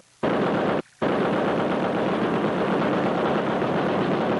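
A .50-calibre M2 Browning heavy machine gun firing long sustained bursts. There is a brief pause about a second in, then continuous fire.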